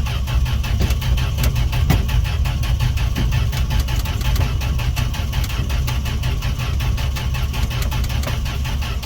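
1968 Fargo D100 pickup's engine turning over on the starter motor, cranking steadily with an even rhythm of compression strokes but never catching. Gas has been poured down the carburettor throat, so the owner suspects it has no spark.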